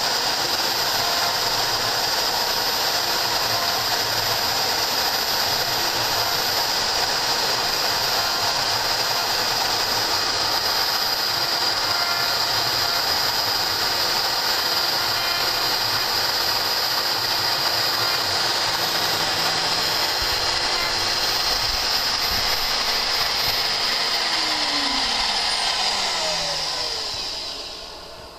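Homemade CNC machine's spindle motor running steadily at speed, then switched off near the end and winding down, its pitch falling as the level drops away.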